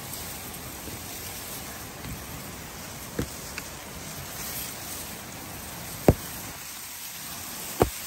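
Steady rustling of tall Napier grass brushing past as people walk through it, with a few sharp snaps or knocks, the loudest about six seconds in.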